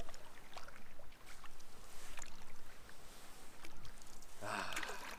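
Wooden canoe paddle stroking through lake water, with water swishing and dripping and small scattered clicks.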